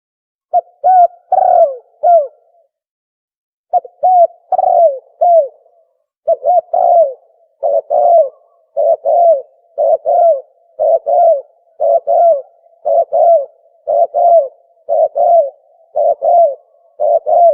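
Recorded tukmo (dove) cooing call played as a hunting lure: short cooing phrases of two or three notes, each note dropping in pitch at its end. The phrases repeat evenly at about one a second after a brief pause near the start.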